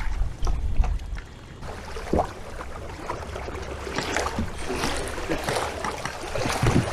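Water lapping and splashing against a fishing kayak's hull, with gusts of wind buffeting the microphone in the first second or so.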